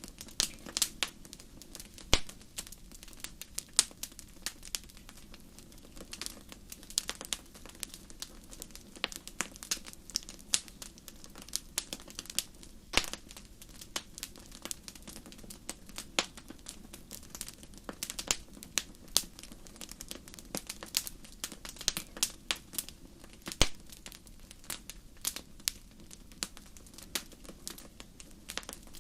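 Wood campfire burning, crackling with irregular sharp pops several a second over a steady low rush.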